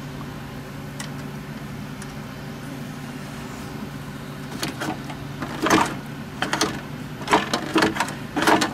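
Metal carburetor parts on a small tractor engine being handled and worked loose by hand: a quiet stretch, then from about halfway several short clinks and scrapes in quick succession, over a steady low hum.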